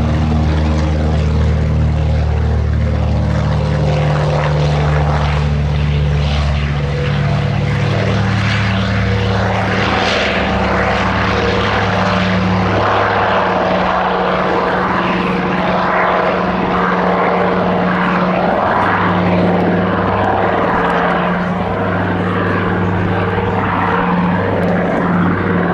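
PBY-5A Catalina's two Pratt & Whitney R-1830 Twin Wasp radial engines and propellers running at high power on take-off and climb-out, a loud steady drone whose low pitch shifts about seven seconds in.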